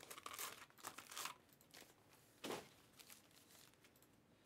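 Faint crinkling of foil trading-card pack wrappers being handled, with a few short rustles in the first second or so and one louder rustle about two and a half seconds in.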